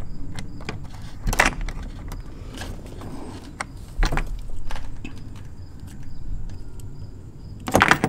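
Small metal clicks and rattles from hands handling a bus ignition switch, its nuts and crimped wire terminals, with sharper clacks about a second and a half in and at about four seconds.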